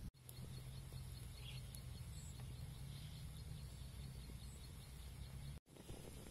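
Faint outdoor background sound: a steady low hum with a few faint high chirps. It cuts out completely for a moment just after the start and again near the end.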